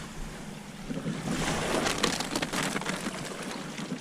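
Water splashing and lapping against a kayak hull, with a run of small splashes and knocks in the middle, over wind on the microphone.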